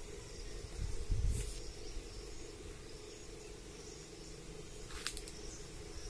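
Outdoor ambience: a steady high insect chirring over a low steady hum. Low wind buffeting on the microphone comes in the first second or so, and a single sharp click or snap about five seconds in.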